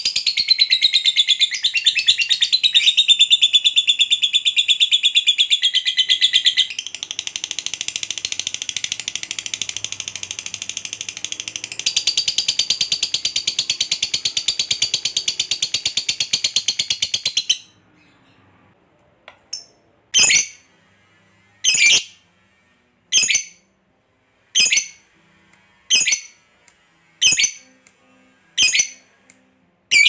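Lovebird's long 'ngekek': a fast, unbroken, high chattering trill, quieter for a few seconds in the middle, held for about seventeen seconds before it stops abruptly. Then a run of short, sharp chirps, about one every second and a half.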